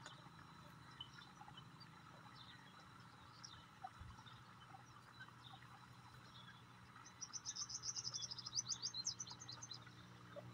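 A bird's quick, high trill of short chirps, about ten a second for some three seconds, starting about seven seconds in, over a faint low steady hum.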